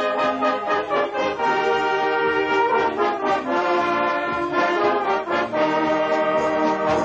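Brass band playing: several brass instruments sound held chords together, and the chords change every second or so.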